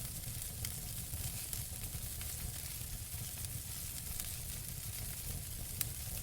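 Wood campfire burning, crackling steadily: a soft hiss and low rumble with scattered sharp snaps, and one louder pop near the end.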